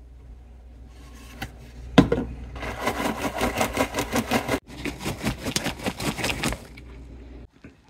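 A plastic shaker bottle knocks down onto a counter, then a paper bag of popcorn is shaken hard, rustling and rattling in fast, even strokes of about five a second for several seconds.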